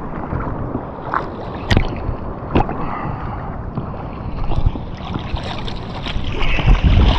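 Sea water sloshing and splashing right at the microphone as someone wades through shallow water among rocks, with a couple of sharp knocks about two seconds in.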